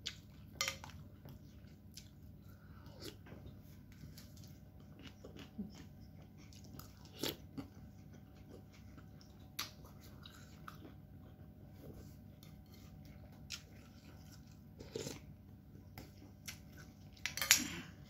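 Close mouth sounds of eating a bowl of instant noodles with meatballs: chewing, with scattered sharp clicks and a louder burst near the end.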